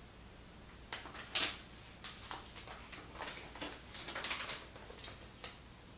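Hands rummaging in a cardboard lens box and lifting out the paper contents: a run of rustles, scrapes and light knocks starting about a second in, the sharpest a moment later.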